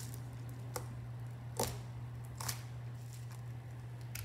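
Crunchy bead-filled slime being handled, giving short sharp pops and clicks about once a second over a steady low hum.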